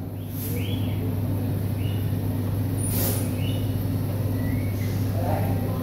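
A steady low mechanical hum throughout, with a few faint short high sounds over it.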